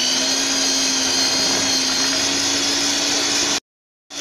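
Electric hand mixer running steadily at medium speed, its beaters whipping a cream-and-Nutella mousse mixture; a steady motor whine. The sound cuts out abruptly for about half a second near the end, then the mixer is heard running again.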